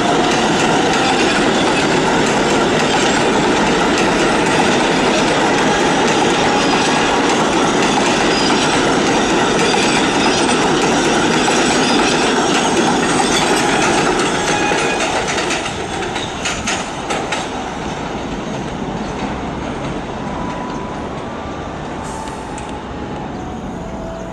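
An R-142A/R-188 subway train runs past close by, its wheels clattering on the rails, with a steady whine over the noise. It stays loud for about 14 seconds, then fades with a few sharp clicks as the train pulls away.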